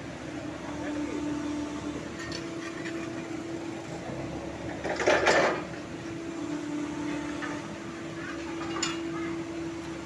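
Plywood sheets being handled by hand, with one loud, rough scraping clatter about five seconds in and a few light knocks. Underneath runs a steady factory machine hum.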